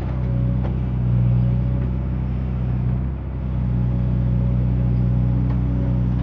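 JCB excavator's diesel engine running steadily, with a brief dip about three seconds in and a few faint knocks.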